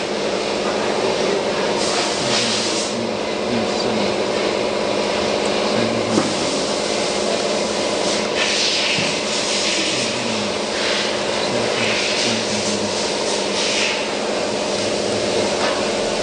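Steady drone of running machinery: several constant tones under a rushing hiss that swells now and then. A single sharp click comes about six seconds in.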